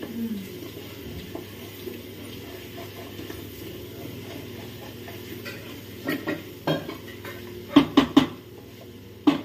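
A metal ladle stirring mutton in a steel cooking pot, scraping around the pot. Sharp metal clanks come in a cluster from about six seconds in, three quick ones just before the end the loudest, and one more near the end.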